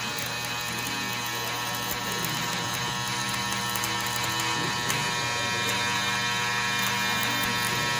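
Steady electric buzz of an aluminum welder at work on a boat's hull.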